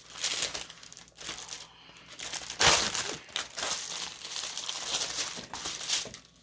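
Packaging of a diamond painting kit crinkling and rustling as it is handled and unpacked by hand, with a louder crumple a little before halfway.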